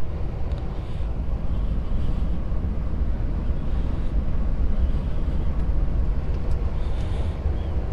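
Steady low rumble inside a DAF XF truck's cab while driving: engine and road drone mixed with strong wind buffeting the cab.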